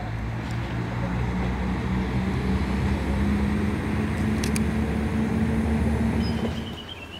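Single-car diesel railcar's engine running under power as it pulls away from the station: a steady low drone that drops off abruptly near the end.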